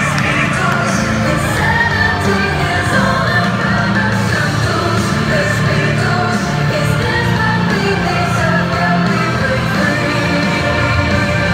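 A song with singing, played loud and steady.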